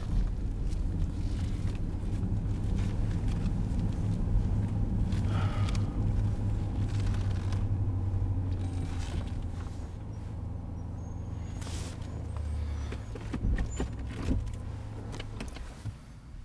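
Steady low drone of a car's engine and road noise heard inside the cabin, easing off near the end, with a few scattered soft clicks.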